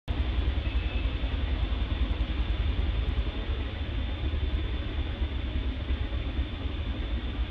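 Steady low rumble with an even hiss above it, with no distinct events.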